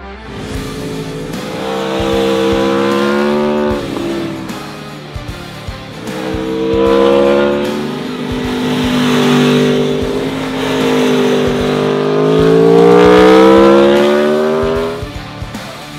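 Aprilia Tuono V4 1100 Factory's V4 engine revving hard on a racetrack. Its pitch climbs and drops in three long runs, breaking off sharply about four seconds in and climbing to its loudest before cutting away near the end.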